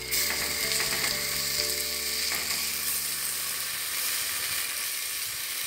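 Sliced onion and ginger-garlic paste sizzling in hot oil in a stainless steel pressure cooker while a wooden spoon stirs them, sautéing until the raw smell of the paste is gone. The sizzle is a steady hiss that jumps up slightly at the start.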